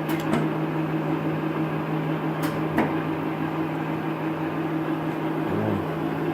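Electric drive motor of a large 36x144 lathe running with a steady hum, with a few sharp clicks near the start and again about two and a half seconds in.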